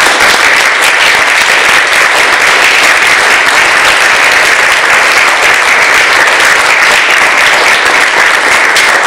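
Audience applauding: loud, steady clapping from a full hall that keeps up without a break.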